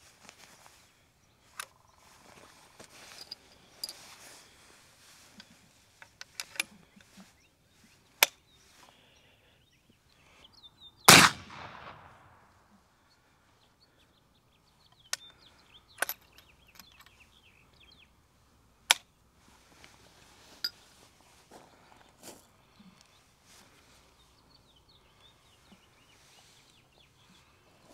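One shot from an Austrian Model 1867 Werndl single-shot rifle firing the 11.15x58R black-powder cartridge, about 11 seconds in, echoing briefly. Before and after it come scattered sharp metallic clicks and clacks as the rifle's rotating block and hammer are worked.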